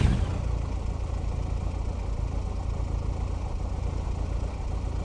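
Kawasaki H2R's supercharged inline-four engine dropping from a rev into a steady idle within the first half second.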